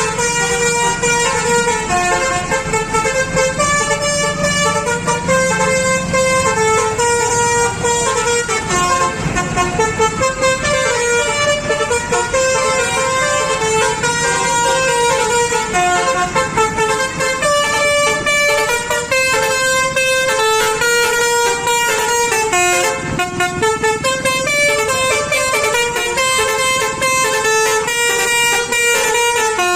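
Indonesian bus "telolet" horn, a set of multi-tone musical air horns, playing a continuous loud tune of short held notes that change pitch every fraction of a second. The notes turn choppier for a few seconds past the middle.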